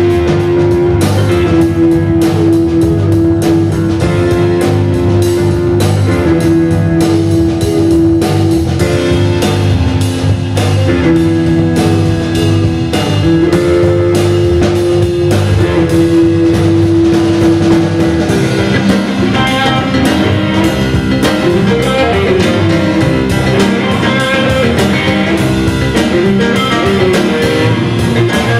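Live blues-rock band playing an instrumental break: Telecaster-style electric guitar leading over electric bass, drum kit and keyboard. Long held notes give way, about two-thirds through, to bending, wavering guitar lines.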